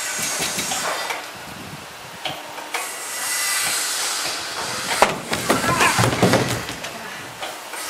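Skateboard and skater slamming onto a plywood mini ramp in a failed drop-in: one sharp bang about five seconds in, then a second of knocks and scuffs as he falls and slides across the wood, over a steady hiss.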